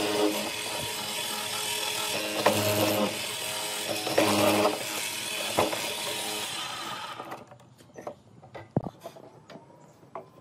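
Benchtop hollow-chisel mortiser running, its square chisel and inner auger boring into a wooden block: a steady motor whine with the noise of cutting, growing louder twice. The machine cuts off about seven seconds in, leaving scattered clicks and knocks as the block is shifted on the table.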